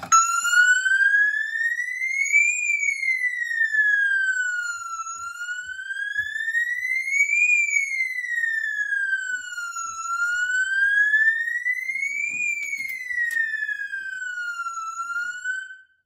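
Fire alarm sounding a siren-like tone that sweeps slowly up and then down, about five seconds per cycle, three times over, after a manual pull station is pulled; it cuts off suddenly just before the end when the alarm is silenced at the panel.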